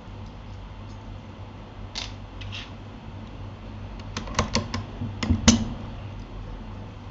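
Keystrokes on a Keychron K8 mechanical keyboard: a few scattered key presses, then a quick run of keys about four seconds in, and the loudest presses about five and a half seconds in. A steady low hum lies underneath.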